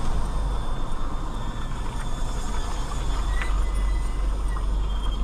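Steady low rumble and hiss of vehicle and road noise, with no single standout event.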